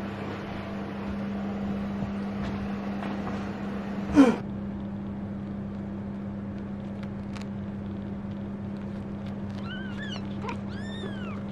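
Domestic cat meowing: one loud short call about four seconds in, then a run of quick short mews near the end, over a steady low hum.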